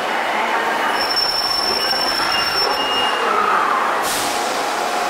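Osaka Metro 66 series electric train braking into a subway platform: steady rolling noise with thin, high brake and wheel squeal from about one to three seconds in, then a sudden short hiss of air about four seconds in as it comes to a stop.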